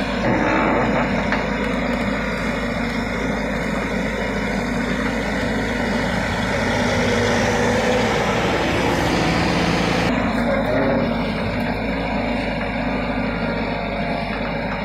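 JCB tracked excavator's diesel engine running steadily under load as the operator works the arm and bucket, heard close to the engine at the open cab door. A higher hiss drops away about ten seconds in.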